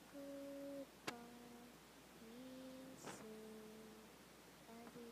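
A child humming a tune in a few long held notes, faint. A sharp click comes about a second in, and a brief hiss near the middle.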